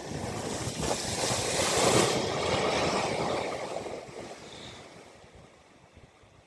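Water splashing and rushing as a vehicle drives through a flooded ford, swelling to a peak about two seconds in and fading away.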